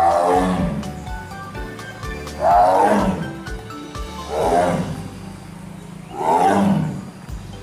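Tiger roaring four times, a second or two apart, each roar sliding down in pitch, over background music.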